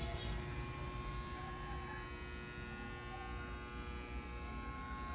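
Steady low hum of room tone with a few faint constant tones above it.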